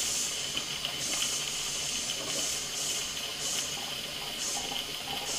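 Steam hissing through a Stuart S50 model mill engine as steam is first let in and the flywheel is turned by hand, with irregular puffs of steam while condensate is cleared from the cylinder.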